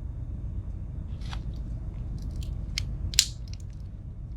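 Victorinox Woodsman Swiss Army knife being handled, its tools folded and opened against the backsprings: a few light clicks, with a sharper snap about three seconds in.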